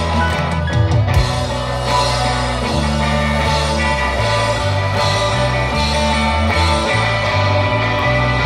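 Live rock band playing through a PA: electric guitars, keyboard and drums, with a heavy bass line changing note every second or so.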